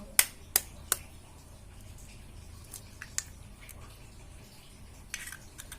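An egg being cracked against the edge of a bowl: three sharp taps in the first second, then a few faint light clicks.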